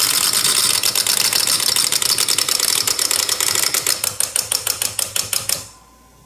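Celebration sound effect of rapid, crackling pops and clicks, thinning out and stopping shortly before the end.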